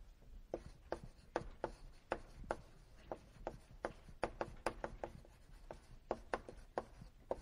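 Writing on a lecture-hall board: an uneven run of short, sharp taps, about three a second, as the writing implement strikes and strokes the board.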